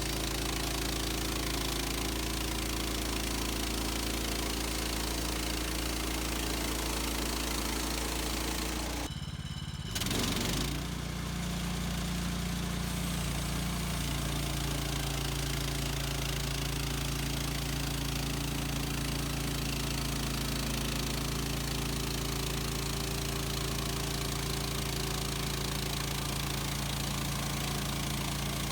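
Gas engine of a Woodland Mills HM130 Max portable bandsaw sawmill running steadily. The sound breaks off for about a second around nine seconds in, then carries on.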